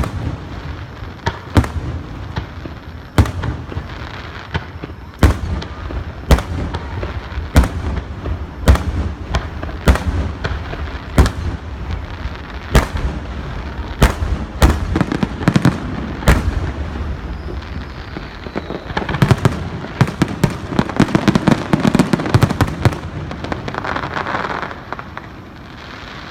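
Fireworks display: aerial shells bursting in sharp bangs, one every half second to a second, then a rapid flurry of many bangs close together a little past the middle.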